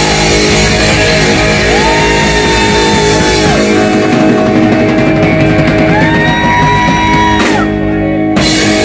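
Live blues-rock band playing loud with electric guitar, bass and drum kit, two long held notes sliding up and back down over it. A short break about seven and a half seconds in, then the band hits again.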